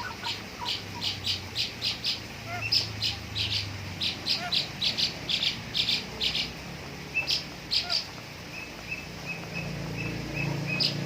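A bird calling in quick short chirps, about three a second, turning near the end into a run of thin, evenly spaced peeps.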